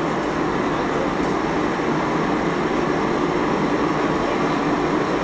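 Steady noise of a commercial kitchen's extraction hood and stove burners running, an even rush with a low hum under it.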